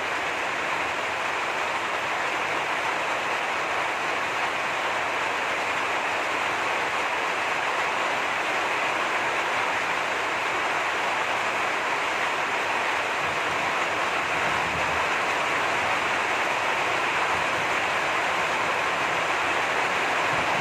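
Heavy rain falling steadily, an even hiss with no let-up.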